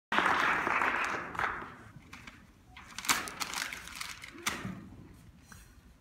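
A rush of noise at the very start that dies away over about a second and a half, then a few sharp knocks on the stage floor and furniture as the seated actor gets up from the desk and moves.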